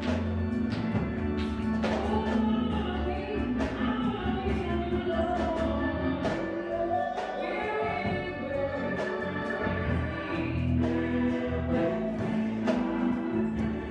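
Gospel church choir singing with instrumental accompaniment: held, sliding sung lines over low bass notes and a steady percussive beat.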